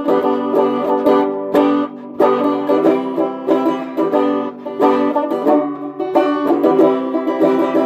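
Background music: a banjo picked rapidly, many quick plucked notes.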